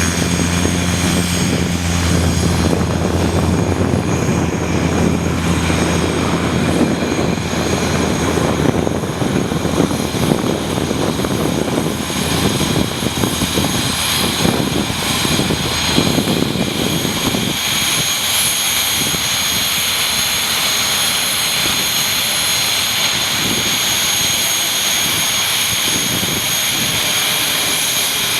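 Mooney M20E's four-cylinder Lycoming engine and propeller running loud. A steady low drone in the first several seconds gives way to a broad rushing noise, and the low drone fades about 17 seconds in.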